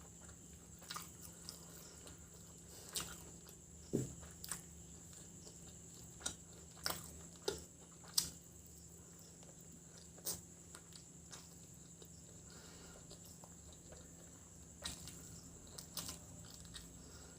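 Close-miked eating sounds of a person chewing chicken biryani with egg masala gravy: irregular sharp mouth clicks and bites, a dozen or so spread unevenly, over a faint steady hum.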